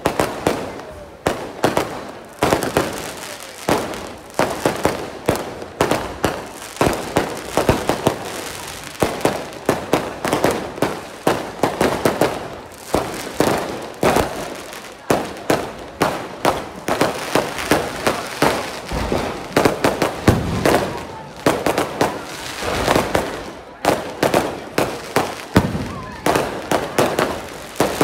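Aerial fireworks going off in rapid succession: a dense, unbroken run of sharp bangs, several a second.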